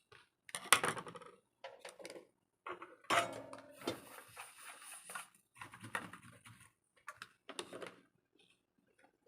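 Irregular clicks, taps and short scrapes of small metal repair tools on a phone circuit board, the loudest click about a second in.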